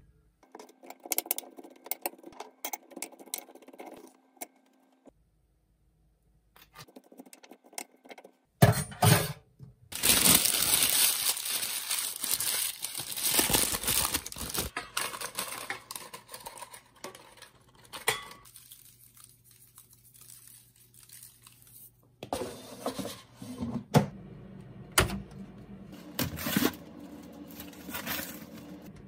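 Sliced mushrooms dropped into a ceramic bowl with soft taps, then a long, loud stretch of a sheet of baking paper being crinkled, crumpled and torn by hand, with more scattered crinkles near the end.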